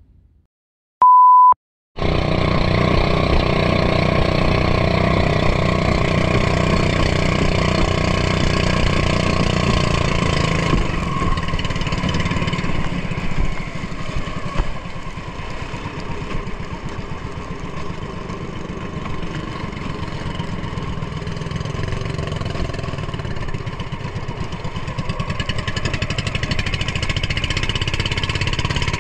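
A short, steady high beep about a second in. Then the engine of a motorized outrigger boat runs steadily under way, with wind and water rushing past.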